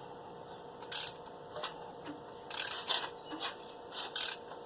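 Ratchet wrench clicking in short bursts, about once a second, as a Chevy 305 V8 is turned over by hand against its compression.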